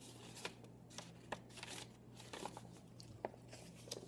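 Faint rustling and crinkling of paper as a card is slid into a small manila envelope and the envelope is folded shut, with a few light ticks and scrapes of handling, over a low steady hum.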